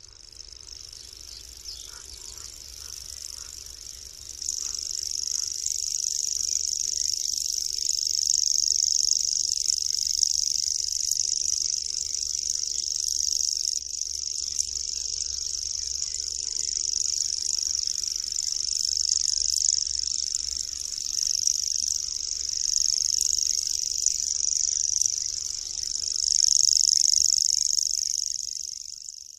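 Common grasshopper warbler reeling: one long, unbroken, high-pitched insect-like trill. It is fainter for the first four seconds or so, then louder, swelling and fading in loudness as it goes on.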